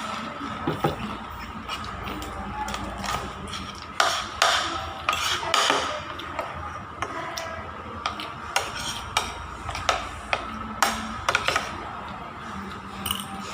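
Cutlery and dishes clinking and knocking irregularly during a meal, busiest about four to six seconds in, over a steady background hum with faint music.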